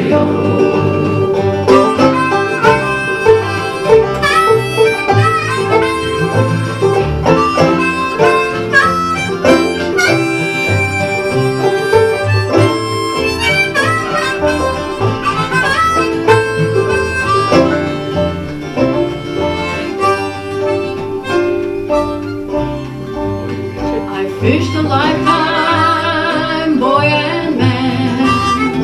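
Instrumental break of a folk-gospel song: harmonica playing over plucked acoustic guitar and banjo with a steady beat.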